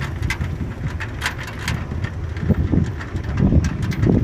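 A vehicle's engine running low and steady while moving, with wind buffeting the microphone and scattered short clicks and knocks.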